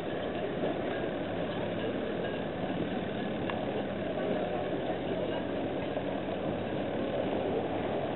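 An engine idling: a steady low hum over an even background noise.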